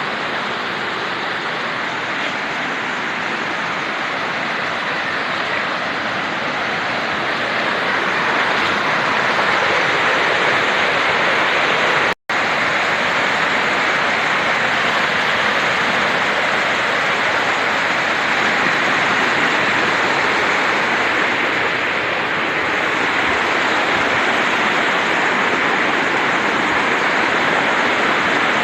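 Steady rushing of water, loud and even throughout, cutting out for an instant about twelve seconds in.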